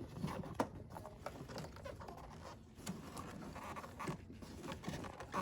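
Scattered small clicks, taps and rustling as parts and tools are handled while working in a car's engine bay.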